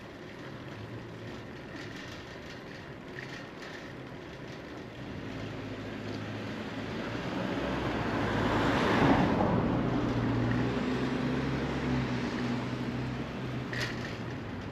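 A car passes close by in the opposite direction. Its engine hum and tyre noise build to a peak about nine seconds in, then fade. Under it runs the steady wind and road rumble of a bicycle ride, and a short click comes near the end.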